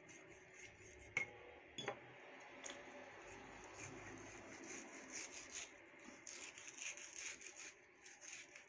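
Large kitchen knife slicing raw boneless chicken breast on a plastic cutting board: faint, irregular scraping and rubbing of the blade through the meat and against the board, with two sharp clicks about one and two seconds in.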